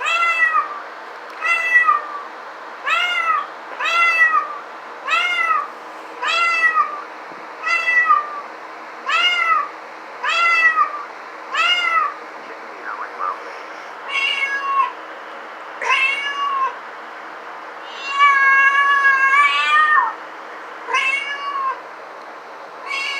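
Cat meowing over and over: short meows that rise and fall in pitch, about one a second for the first twelve seconds, then spaced-out meows with one longer, wavering meow.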